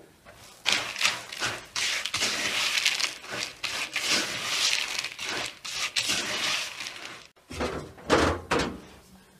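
Spoon stirring crumbled cookies coated in thinned condensed-milk syrup in a plastic tub: irregular scraping and rustling strokes, with a few louder knocks about eight seconds in.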